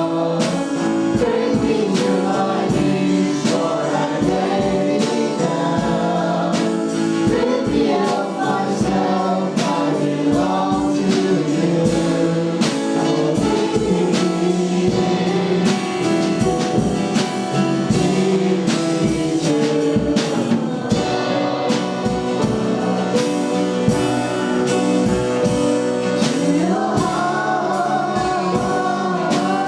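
Gospel worship music: voices singing together over instrumental accompaniment with a steady beat.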